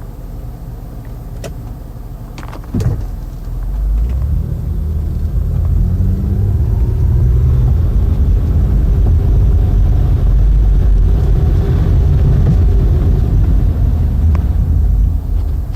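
A low rumble that swells about four seconds in and then holds steady, with a single knock near the start.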